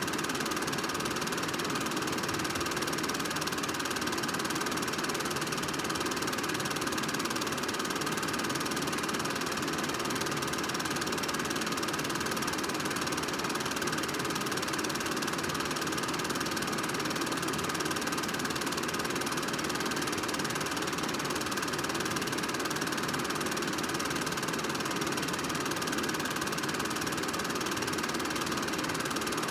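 Film projector running: a steady, unchanging mechanical whir.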